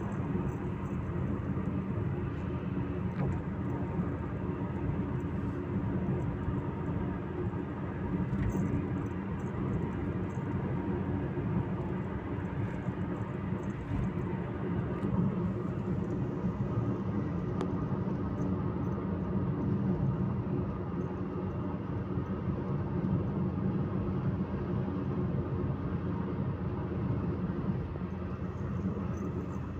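Steady low road and engine noise heard inside a car's cabin at expressway speed, an even rumble with no change in pitch or level.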